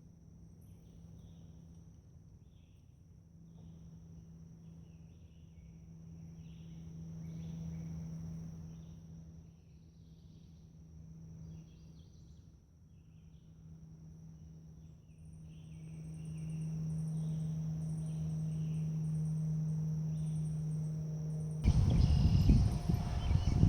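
Forest ambience: a steady high insect trill with scattered chirping calls over a low steady hum. About two seconds before the end, loud irregular footstep thuds begin.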